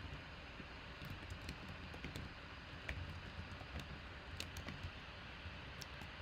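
Faint, irregular tapping and clicking of computer keys over a low steady hiss, starting about a second in.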